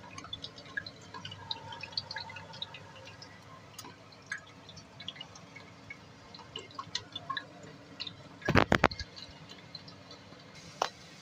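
Hot oil crackling and spitting around freshly fried eggplants in a pan, a steady scatter of small pops. About eight and a half seconds in, a short loud clatter.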